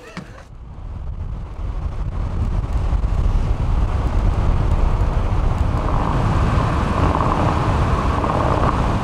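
Car driving along a paved road: a steady low rumble of engine and tyre noise with wind on the microphone, fading in over the first couple of seconds and then holding steady.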